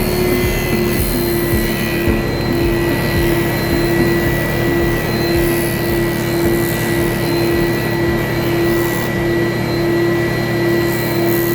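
Electric woodworking power tool running steadily with a constant motor whine, its pitch dipping slightly about a second in.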